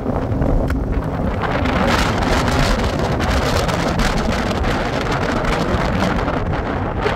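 Strong wind buffeting the microphone over a steady low rumble from a moving vehicle.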